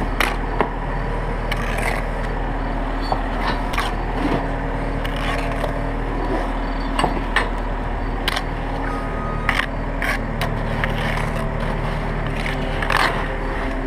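Bricklaying with a steel trowel: mortar scooped and spread, with sharp clinks and taps of trowel and brick every second or two. A steady engine drone runs underneath.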